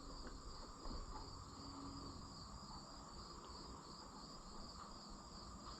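Faint, steady chirping of crickets in a fast, even pulse, with a faint tap about a second in.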